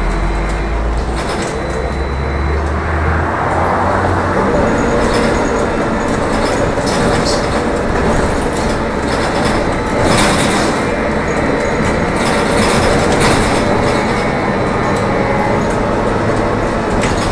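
Inside a moving trolleybus: the steady running noise of the electric drive, tyres and body, with a few louder rattling knocks about ten and thirteen seconds in.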